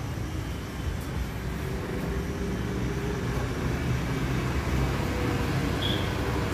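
Road traffic noise: a steady low rumble of vehicles running past.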